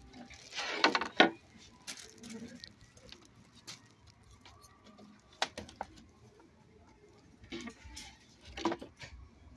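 Framed posters and wooden signs knocking and clacking against each other as they are flipped through by hand. The loudest knocks come about a second in, with more scattered clacks after that and another cluster near the end.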